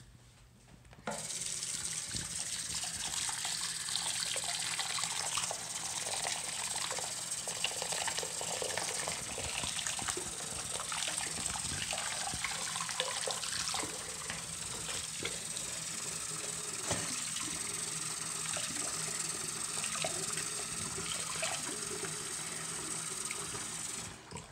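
Bathroom sink tap running steadily into the basin, turned on about a second in and shut off near the end, with small irregular splashes as the water hits the sink.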